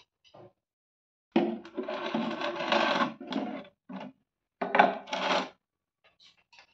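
A clear plastic jar scraping and knocking against a concrete floor and wall: one long scrape, a short knock, then a second shorter scrape, with faint ticks near the end.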